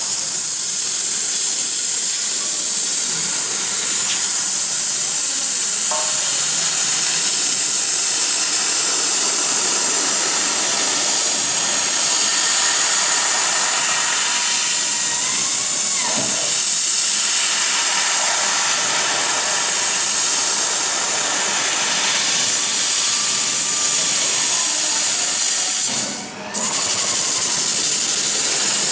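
CO2 laser cutting machine cutting sheet steel: a steady high hiss from the gas jet at the cutting head, which drops out for about half a second near the end. Faint motor whines rise and fall in pitch now and then as the head moves.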